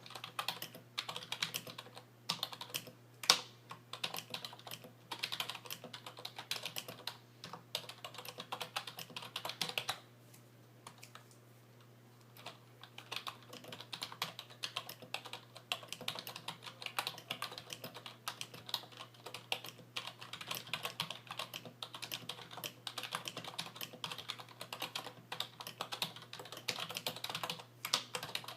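Typing on an IBM Model KB8923 rubber-dome membrane keyboard, its keys and stabilizers lubed with dielectric grease: a fast, steady run of key presses. One louder stroke comes about three seconds in, and the typing breaks off for about two seconds near the middle.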